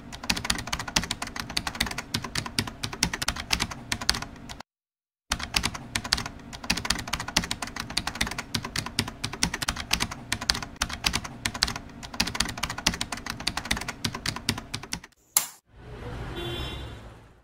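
Rapid computer-keyboard typing clicks used as a typing sound effect for text appearing on screen, with a short pause about four and a half seconds in. Near the end the clicking stops and a brief swelling sound effect follows.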